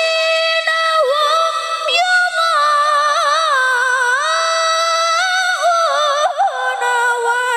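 A girl's voice reciting the Qur'an in melodic tilawah style into a microphone, holding long high notes that slide from pitch to pitch, with quick wavering ornaments in the middle and near the end.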